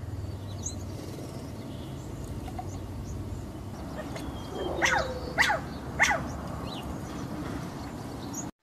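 A quail calling: three short, sharp notes in quick succession about five seconds in, over a steady background hiss that cuts off suddenly near the end.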